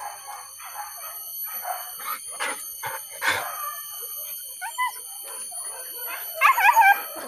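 Hunting dogs whining and yelping in short, wavering squeals, a brief pair a little before the middle and a louder burst near the end, over rustling through forest undergrowth. A steady high-pitched ringing runs in the background.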